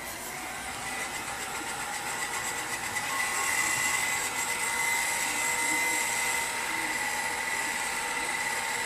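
Hot-air gun switched on and blowing steadily, a motor-and-fan whine with a high whistle, building up over the first few seconds; heat of this kind is used to soften the adhesive holding the phone's screen assembly.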